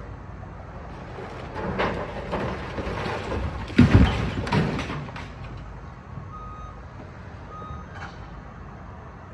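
Building demolition: rubble crashing and scraping for a few seconds, loudest about four seconds in, over the steady rumble of heavy machinery. Later, two short reversing beeps from a machine backing up.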